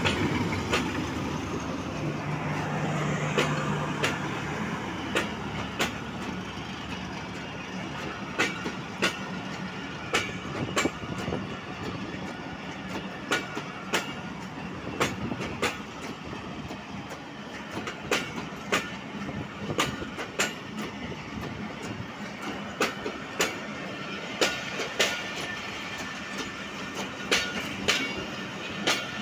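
Diesel-electric locomotive and passenger coaches passing close by. The locomotive goes by first, then the coaches' wheels clack over the rail joints in regular pairs of knocks, over a steady rolling rumble.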